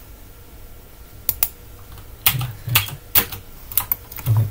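Computer keyboard being typed on: about eight separate keystrokes in uneven short runs, starting about a second in, a few of them with a low thud.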